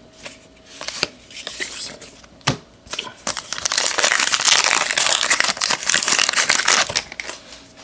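Trading-card pack wrapper crinkling, with cards being handled: a few light clicks, then a dense crackling for about four seconds starting about three seconds in.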